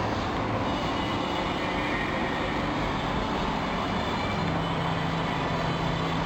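Steady mechanical noise with a low hum that steps up in pitch about four seconds in.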